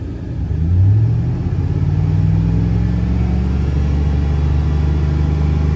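A 2002 GMC Sierra's 5.3-litre V8 revs up from idle about half a second in; its pitch climbs for about a second, then holds steady at a raised speed, heard from inside the cab. The engine is being held near 3000 rpm to warm it to operating temperature and open the thermostat while the cooling system is refilled after a water pump replacement.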